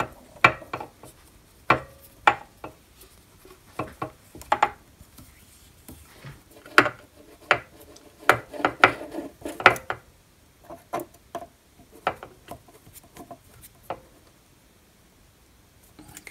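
Irregular metal clicks, clinks and light scrapes of a hex key turning and seating button-head screws in an aluminium cover plate, dying away about two seconds before the end.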